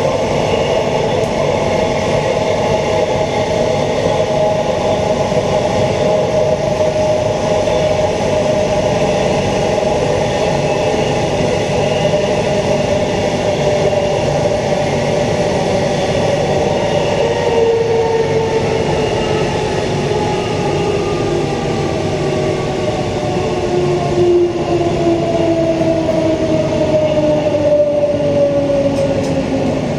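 Queensland Rail EMU electric train heard from inside the car: steady running noise of wheels on the rails with the whine of its ASEA traction equipment falling slowly in pitch, as the train slows for its next stop.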